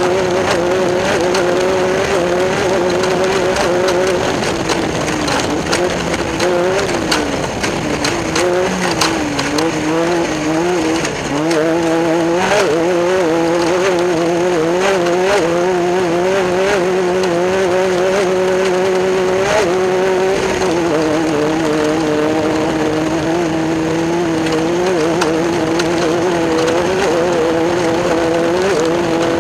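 Class 10 off-road race car engine running hard under constant throttle changes, its pitch wavering up and down. The revs sag for a few seconds about a quarter of the way through, then climb back. Scattered knocks and rattles sound through it.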